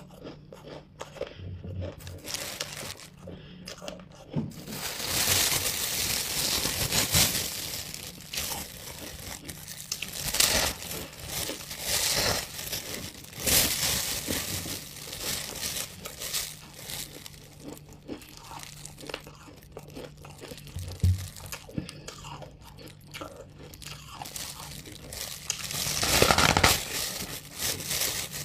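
Hard, dry crunching as buckwheat chunks are bitten and chewed, with the plastic bag around the block crinkling. The crunching comes in irregular crackles and is loudest about five seconds in and again near the end.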